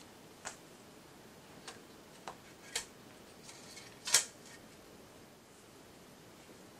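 A few light clicks and taps, then one louder knock about four seconds in, as a fluted metal tart tin is lifted off cut pastry dough on a silicone baking mat and handled.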